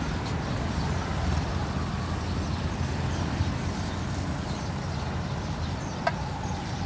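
Steady rumble of street traffic, cars and motorbikes on the road. A single sharp click with a brief ring comes about six seconds in.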